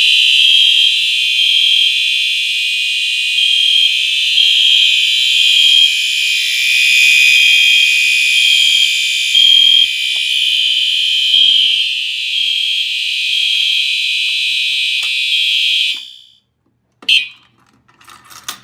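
A bank of fire alarm horns and horn-strobes (Simplex TrueAlert, Wheelock Exceder, EST Genesis, System Sensor P2RL) sounding all at once, set off from a pull station: a loud, high-pitched din with a regular pulsing beat in it. It cuts off suddenly about sixteen seconds in, followed a second later by a brief click.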